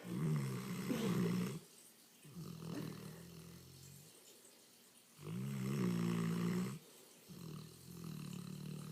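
English Mastiff snoring in a slow, even breathing rhythm: two loud, rasping snores, each followed a second or so later by a softer one.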